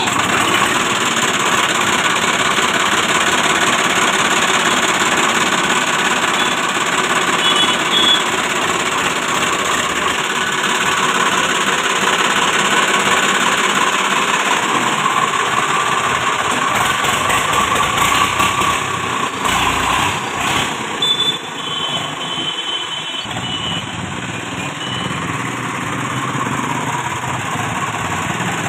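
Swaraj 744 FE tractor's three-cylinder diesel engine running steadily just after starting, as the tractor moves off under power. This is the test run after its gearbox carrier unit was rebuilt.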